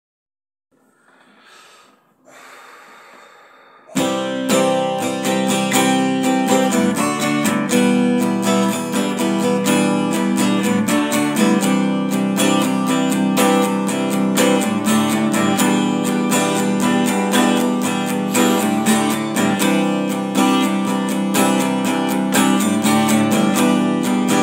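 Acoustic guitar strummed in a steady rhythm. It starts suddenly about four seconds in, after a few seconds of faint noise.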